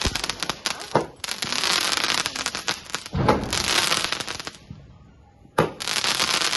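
A multi-shot aerial firework cake firing: about four sharp bangs a second or two apart, each trailed by a crackling fizz that lasts a second or more.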